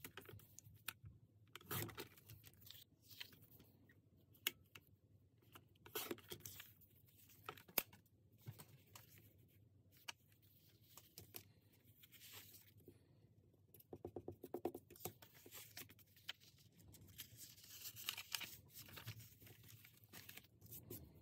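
Faint paper-handling sounds: a sheet of stationery card being slid, shuffled and cut on a Fiskars sliding paper trimmer, with scattered clicks and taps. A quick run of rattling ticks comes about two-thirds of the way through.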